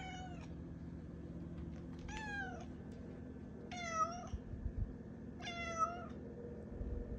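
Tabby-and-white domestic cat meowing up at its owner four times, each meow about half a second long and spaced a second and a half to two seconds apart, over a low steady hum.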